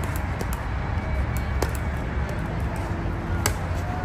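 Pickleball paddles striking a plastic pickleball: scattered sharp pops, the loudest about three and a half seconds in, over a steady low rumble.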